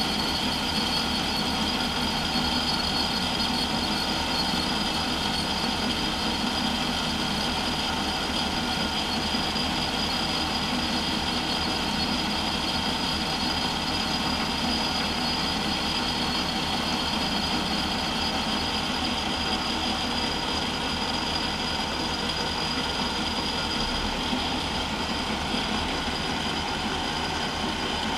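Smithy Granite metal lathe running steadily with a constant high whine over a low hum, a boring bar cutting inside the bore of the spinning muzzle-brake workpiece.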